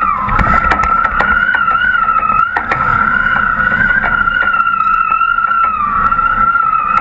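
Tow boat's motor running at a steady speed, with a steady high-pitched whine that wavers slightly in pitch, over low wind and water rumble and scattered small knocks.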